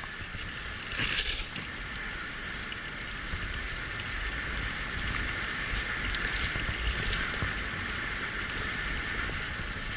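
Wheeled dog-racing rig pulled by a six-dog team, rolling steadily along the trail: a continuous rumble and crunch of wheels on the track, with a sharp knock about a second in.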